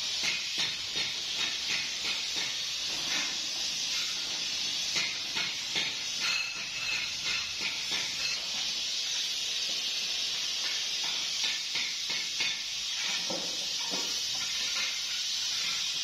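Water splashing and sloshing as steel pipes are dunked and swished in an open drum of water, with short knocks and splashes over a steady hiss.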